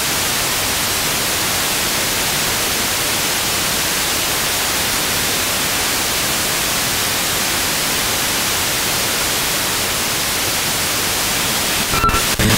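Steady FM static hiss from a Blaupunkt car radio tuned to 91.1 MHz with no signal: the relay transmitter has been knocked off the air by lightning. About 12 seconds in, the tuner steps up the band and the hiss breaks off with a click into choppy fragments of a station.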